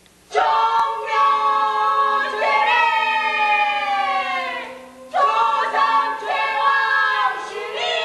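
A small group of voices singing a chant without accompaniment, in long held notes that slide downward in pitch, with a brief break about five seconds in.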